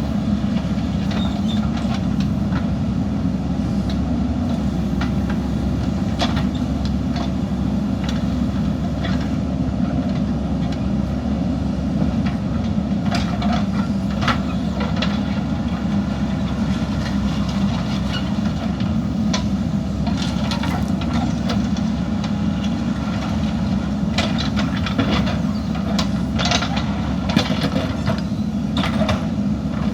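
JCB backhoe loader's diesel engine running steadily under work, with scattered metallic clanks and scrapes. The clanks come thickest about halfway through and again near the end.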